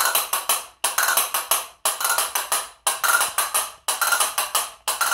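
Pair of Spanish castanets played by hand, repeating the 'tarriápita' figure: a quick roll of clicks followed by a couple of strokes, about one phrase a second.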